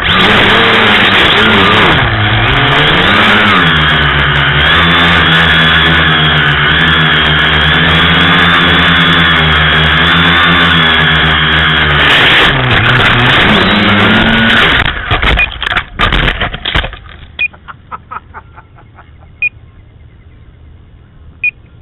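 Tricopter's electric motors and propellers whining loudly, the pitch rising and falling with the throttle. About three-quarters of the way through, a short clatter of knocks comes as the craft hits branches and the motors cut out. After that there are only a few faint clicks.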